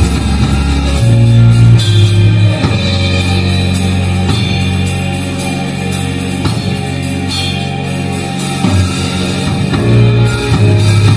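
Live band playing without vocals: keyboard chords and bass notes held under a drum kit with cymbal hits and electric guitar.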